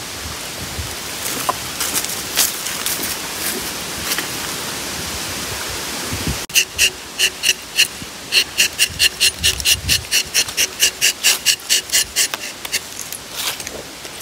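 Steady wind noise for about the first six seconds. Then a rubber-tapping knife cuts along the bark of a rubber tree in rapid, even rasping strokes, about four a second, for several seconds, with a few more scrapes near the end.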